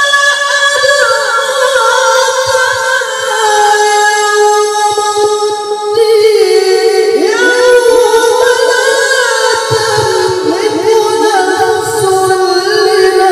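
A male qari's voice reciting the Quran in melodic tilawah style into a microphone, holding long, high notes with wavering ornaments. Near the middle there is a brief pause for breath, then a new phrase begins.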